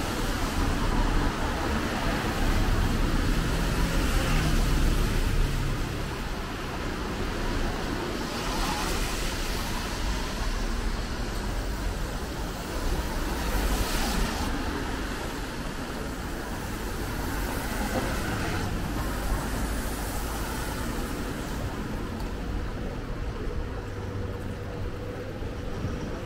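City road traffic on a wet street: engines rumbling, heavier in the first few seconds, and cars passing with a hiss of tyres on the wet road, which swells about a third of the way in and again about halfway.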